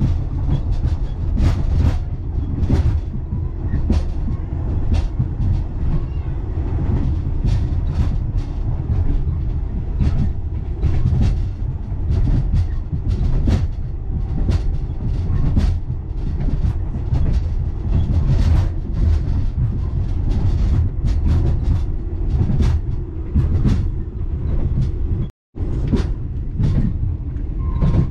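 Passenger carriage of a moving train heard from inside: a steady low rumble of wheels on track with frequent irregular clicks and knocks. The sound cuts out completely for a moment near the end.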